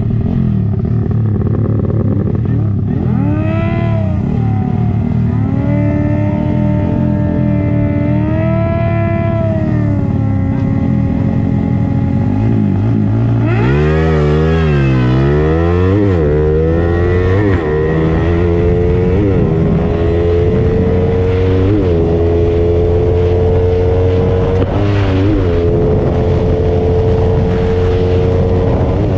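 Motorcycle engines running at speed over a steady low drone. In the middle the revs swing up and down several times, then a higher engine note climbs slowly with a brief dip every two to three seconds.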